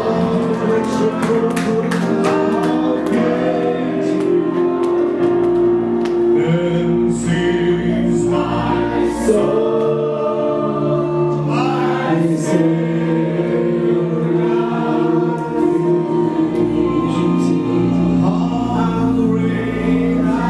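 Gospel worship music: voices singing over long held chords, with a few sharp clicks in the first few seconds.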